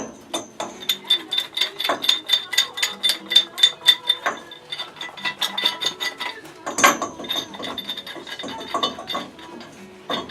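A ratchet wrench clicking in quick runs of metallic ticks, about five a second at first, then more sparsely, with a louder metal clatter about seven seconds in, as a fitting on old boiler piping is worked loose.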